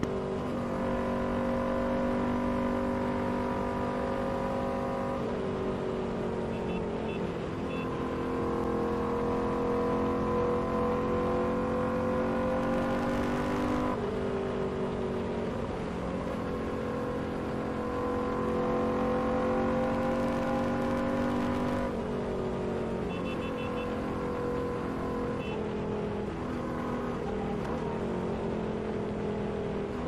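Royal Enfield Continental GT 650's parallel-twin engine running steadily at highway riding speed, heard from the rider's seat. Its note rises and falls in pitch several times, dropping sharply about fourteen seconds in.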